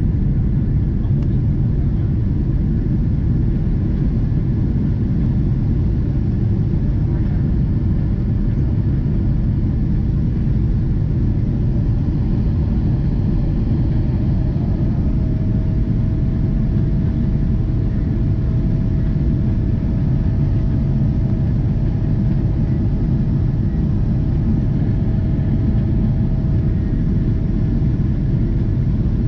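Cabin noise inside a Boeing 777-200ER climbing out after takeoff: the steady, deep rumble of its Rolls-Royce Trent 892 engines at climb power mixed with airflow over the fuselage. A faint steady whine joins the rumble about halfway through.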